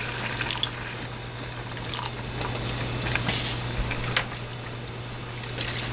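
Water poured from a cup into a saucepan of chicken stew on the stove, then the stew simmering, with a few short knocks. A steady low hum runs underneath.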